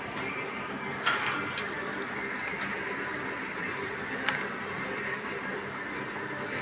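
Parakeet biting and crunching a hard biscuit held in its foot: a few sharp crunches and clicks, the loudest about a second in and another after about four seconds, over a steady background hiss.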